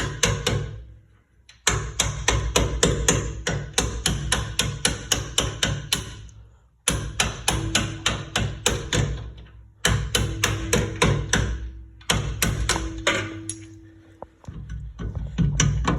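Hammer tapping rapidly, about six blows a second, on the large bolts of a Toyota Camry's rear strut mount to drive them out. The blows come in runs of a few seconds broken by short pauses.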